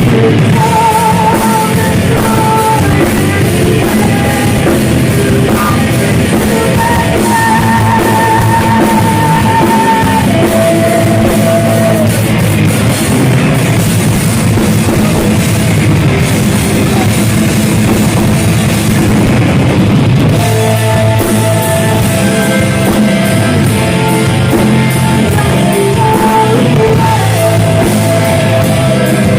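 A heavy metal band playing live and loud, with distorted guitars and a drum kit, and held, wavering melodic lines over the riffing.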